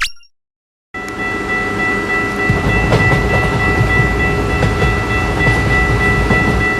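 Train sound effect starting about a second in: a train running with a low rumble and a steady high tone held over it.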